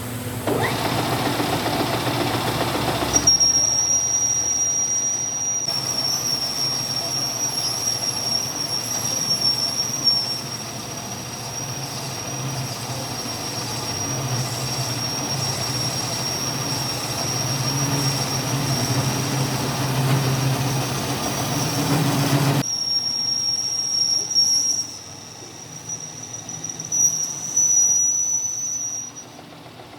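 Metal-cutting machine tool working a steel part: a steady high-pitched whine over a running machine hum, with abrupt changes about three seconds in and again near twenty-three seconds.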